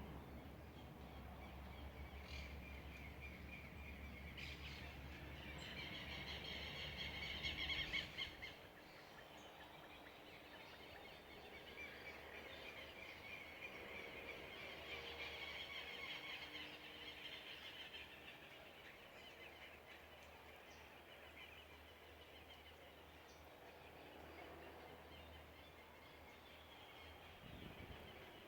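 Several wild birds singing, with repeated fast trills, loudest a little before a third of the way in and again around the middle. Under the birds in the first third there is a low rumble, which stops abruptly.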